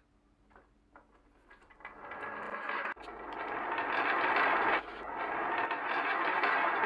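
Wooden balls rolling and clattering down a marble run: two light clicks, then from about two seconds in a dense rattling roll that builds louder, breaking off sharply twice before starting up again.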